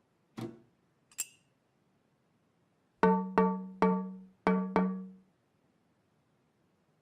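Five quick struck musical notes, all on one low pitch and each ringing briefly, come about three seconds in. They follow a soft knock and a short high click.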